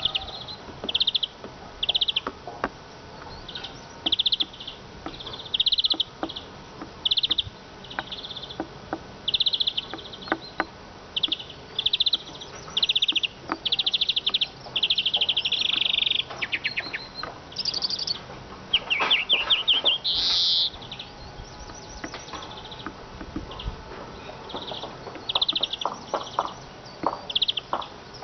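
Eurasian siskin singing: a run of short twittering chirp phrases, with a longer buzzy trill about halfway through and a falling series of notes a few seconds later.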